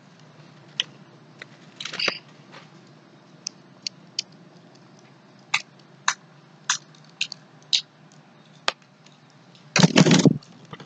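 Pringles potato chips being bitten and chewed: scattered short, crisp crunches, with a louder, longer noisy burst near the end.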